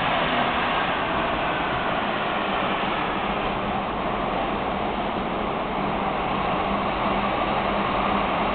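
Frankfurt U-Bahn train running through a tunnel, heard from inside the passenger car: a steady rolling rumble with a faint low hum.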